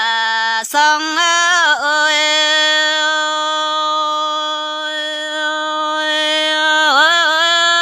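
A solo voice singing a Red Dao (Iu Mien) folk song, with no instruments. It sings a short wavering phrase, then holds one long drawn-out note for about five seconds, ending with a wavering turn.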